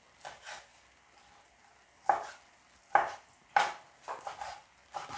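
Kitchen knife cutting through fried tofu and knocking on a plastic cutting board: soft taps at first, then three sharper knocks under a second apart, then more soft taps near the end.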